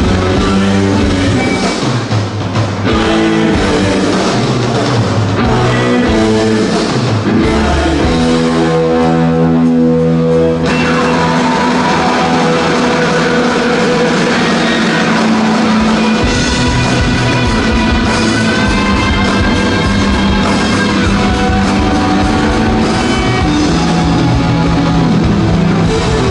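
Rock band playing live and loud, with electric guitars, bass and drums. Near the middle the cymbal hiss and low drum thud drop away for about five seconds, leaving held guitar notes, then the full band comes back in.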